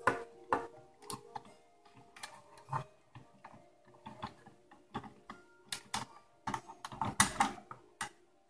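Plastic toy fire engine being handled on a tabletop: irregular clicks and knocks as its parts and a toy figure are moved, with a louder cluster of clicks near the end.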